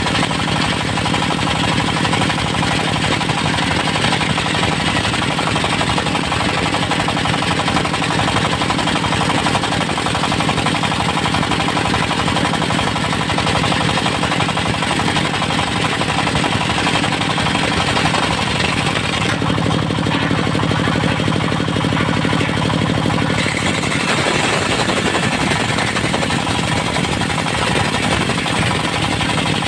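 Engine-driven portable circular sawmill running under load, its disc blade sawing through a Mindi (chinaberry) log, with a rapid, steady pulsing engine note. For a few seconds about two-thirds of the way through, the high-pitched cutting noise drops away and the engine's low note comes forward, then the cutting sound returns.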